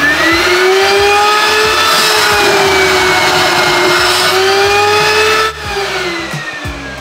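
Lake Lifter 24 V DC blower motor on a Poly Lift air-displacement boat lift running: its whine rises to a steady pitch within the first second. About five and a half seconds in it is shut off, and the whine falls as the motor winds down.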